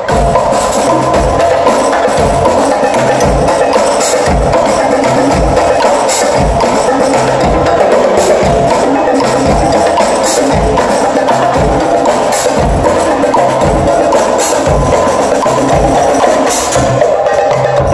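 Live percussion ensemble of timbales, cymbals, large barrel drums and a hand drum playing together, loud, in a fast steady rhythm with regular deep drum hits under crisp stick strikes and cymbal crashes.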